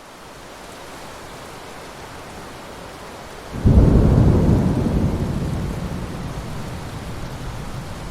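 Steady rainfall, with a sudden deep clap of thunder about halfway through that rumbles and slowly dies away under the rain.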